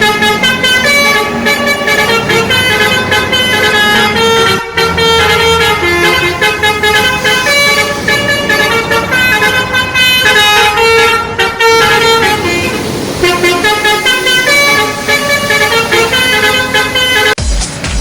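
Bus telolet horn, a set of multi-tone air horns, playing a fast tune of stepping notes that runs on almost without pause, with short breaks around five and twelve seconds in.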